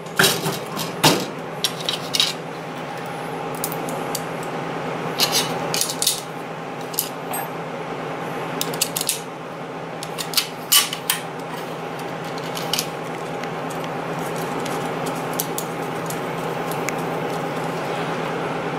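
Metal clinks and clicks as the metal bar and its screws are handled and fastened back onto a Braillo magnet rack with a hand tool. The clinks are scattered and come mostly in the first two-thirds. A steady hum runs underneath.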